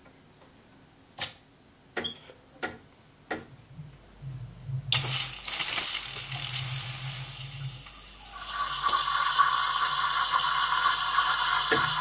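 A few sharp clicks, then the Gaggia Classic's steam wand opens with a loud hiss of steam, and from about eight seconds in it hisses and crackles into a pitcher of milk as the milk is steamed. Under the hiss the machine's vibratory pump buzzes in stretches, topping up the steam pressure when it drops below 2 bar.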